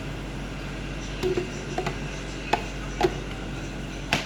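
A steady low electric hum from a small appliance running, with about five sharp clicks and knocks of handling. The hum cuts off near the end.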